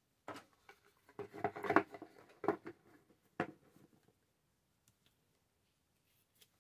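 Paper and craft pieces being handled on a work surface: irregular rustling and crinkling with a few sharp taps, dying away a little past halfway.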